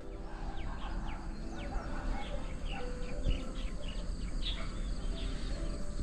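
Outdoor ambience of many small birds chirping, with quick falling chirps scattered throughout, over a low steady hum.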